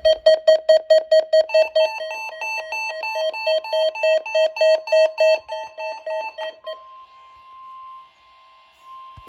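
Weather alert receiver sounding its alarm: rapid electronic beeping of several pitches, which stops about two-thirds of the way through. After that comes the quieter steady tone of the NOAA Weather Radio warning alarm.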